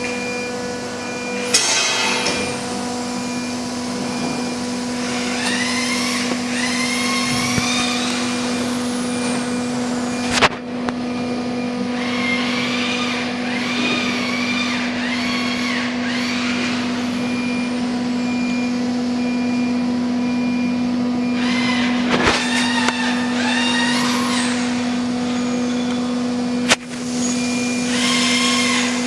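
CNC router running: its axis drive motors whine in rising and falling tones in several runs as the machine moves, over a steady low hum. A few sharp clicks come through, the clearest about ten seconds in and again near 22 and 27 seconds.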